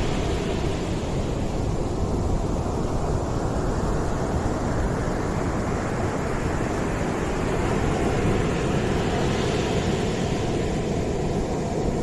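Sea waves breaking and washing up the shore: a continuous rushing with a deep rumble. The hissing wash fades a couple of seconds in and swells again near the end as the next wave comes in.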